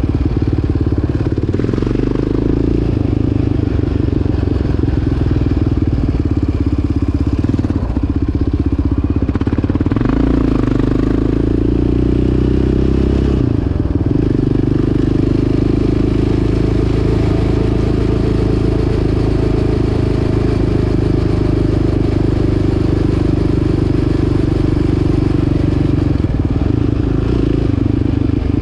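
Yamaha Raptor 700 quad's single-cylinder four-stroke engine running as it is ridden, steady at first, dropping and then climbing in pitch about ten to fourteen seconds in, then holding steady.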